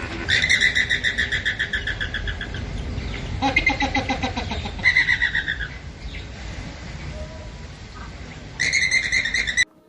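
Rapid trilling chirps from an animal, in several bouts of fast repeated notes, the last bout cut off abruptly near the end, over a steady low background rumble.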